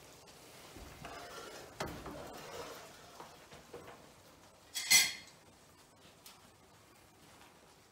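A frying pan being handled on a gas hob: soft knocks and shuffling, then one sharp metallic clank about five seconds in as the pan comes off the metal grate.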